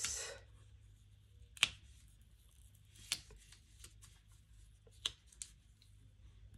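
Paper planner sticker being peeled up from the page and pressed back down by fingertips: faint paper rustling with a few sharp clicks, the loudest about a second and a half in.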